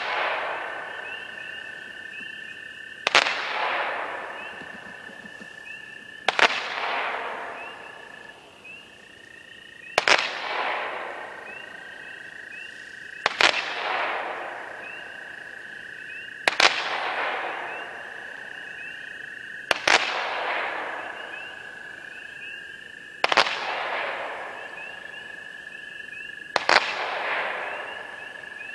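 A 30 mm brocade mine cake firing one mine about every three seconds, eight times: each a sharp bang followed by a fading hiss from the brocade stars.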